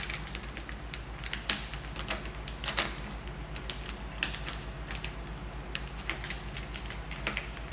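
Scattered light metallic clicks and knocks as the loosened clamp pieces of a single-bolt dropper seatpost head and the saddle rails are handled and worked into place.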